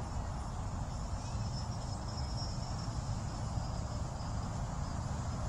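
Steady high-pitched trilling of insects, loudest in the middle stretch, over a continuous low rumble.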